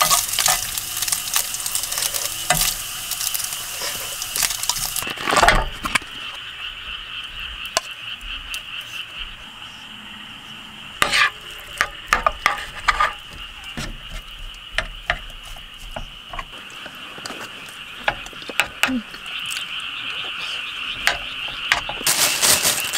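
Food sizzling in a frying pan on a portable gas burner: first chopped ham, then fried rice with egg. A wooden spatula stirs and scrapes the pan, with sharp clacks and scrapes, thickest in the middle and later. A steady high-pitched chorus runs underneath.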